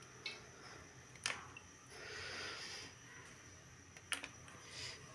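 Quiet room tone with a low hum, two sharp clicks about a second and about four seconds in, and a brief soft hiss in between.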